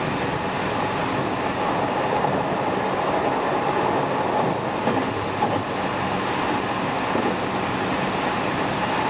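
JR West 207 series electric commuter train running at speed, heard from inside the motor car: steady rolling and wheel noise with a faint steady whine.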